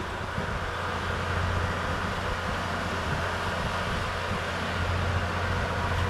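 An engine running steadily with a low, even hum.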